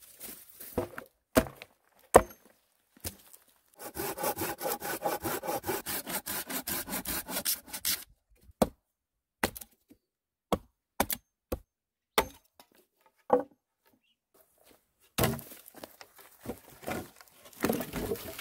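A few sharp knocks, then a hand saw cutting a log in quick, even strokes, about six a second, for some four seconds. Then a hatchet chops a notch into a wooden pole, single chops about half a second to a second apart. Near the end come rustling and footsteps in leaf litter and wood chips.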